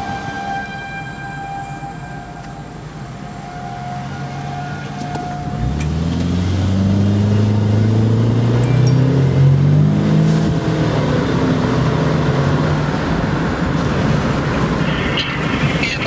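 Outdoor tornado warning siren sounding at a distance, heard from inside a car. About six seconds in, a vehicle's low engine hum comes up loud and rises slowly in pitch as it accelerates, drowning out the siren.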